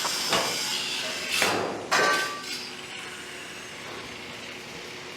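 Building-site noise: a few sharp metal bangs, the loudest about two seconds in with a brief ring, then steady background site noise.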